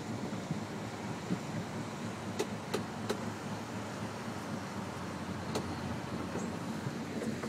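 Car driving along, heard from inside the cabin: a steady low road and engine noise, with a few short clicks, three close together about two and a half seconds in.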